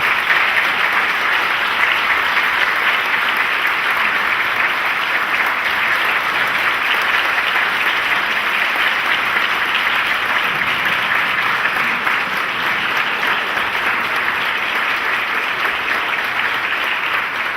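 Church congregation applauding steadily, sustained clapping that begins to fade near the end.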